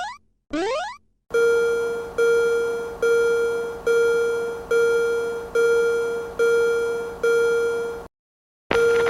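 Two quick rising cartoon 'boing' sweeps, then a Japanese railroad crossing warning bell ringing eight times at a steady pace, a little under once a second. Each strike rings out and fades. The bell stops briefly near the end, then starts ringing again.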